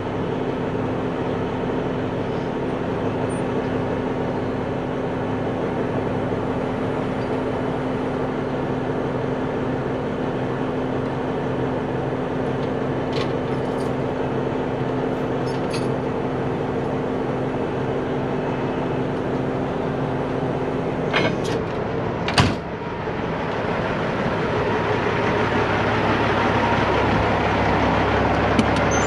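Heavy-duty wrecker's diesel engine idling steadily. A few sharp knocks come about two-thirds of the way through, and the engine noise then swells louder and rougher near the end.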